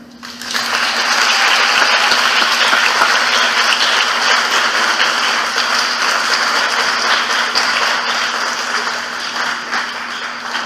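Theatre audience applauding: the clapping starts about half a second in, swells within a second to full, steady applause, and eases slightly near the end.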